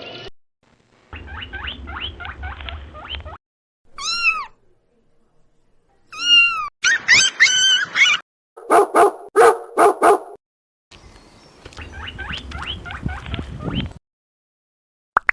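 Pet animal cries in several separate bursts with silent gaps between: a faint run of short cries, then one rising-and-falling cry about four seconds in, a quick string of such cries around six to eight seconds, five sharp calls around nine to ten seconds, and another faint run near the end.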